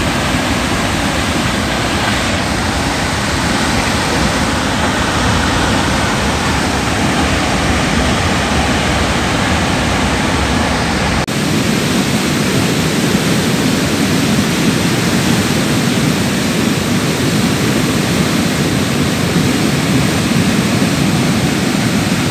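Steady, loud rushing of a muddy landslide torrent pouring down a stream bed over rocks and boulders. About eleven seconds in the sound changes abruptly, with less of the deep rumble underneath.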